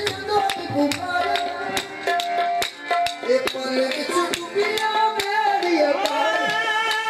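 Qawwali music: held melodic notes and a voice over quick tabla strokes.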